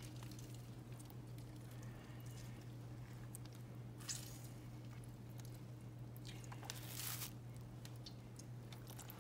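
Limes being squeezed by hand, with faint squishing of the fruit and squirts of juice. The two loudest squirts come about four and seven seconds in, over a steady low hum.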